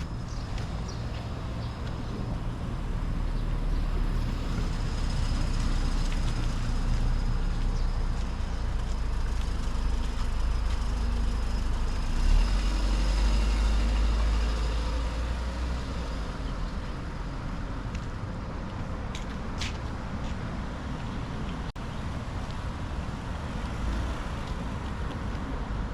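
A motor vehicle passes on the road, its deep rumble building over several seconds, loudest about halfway through, then fading away. A couple of sharp clicks follow near the end.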